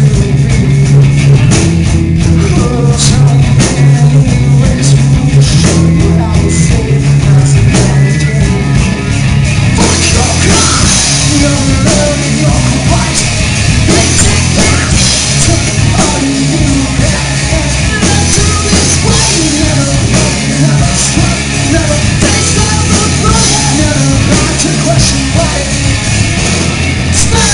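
Live rock band playing loud, heavy music on distorted electric guitars, bass and drum kit, with a male singer. The sound turns brighter and denser about ten seconds in.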